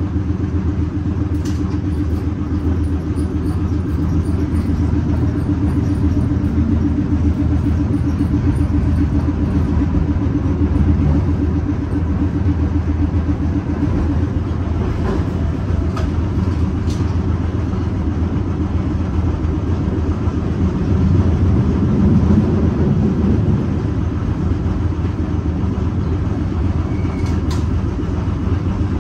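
1920s Perley Thomas streetcar running along its track, heard from inside the car: a steady low rumble, with a few sharp clicks near the start, around the middle and near the end.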